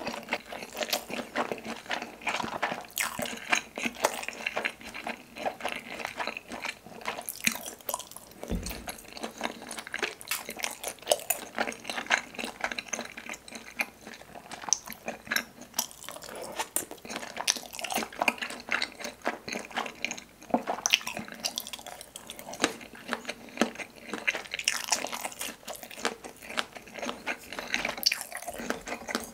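Close-miked wet mouth sounds of eating spicy tteokbokki: sticky chewing of chewy rice cakes, slurping of sauce-coated glass noodles, and many small smacks and clicks throughout. A single low thump comes about a third of the way in.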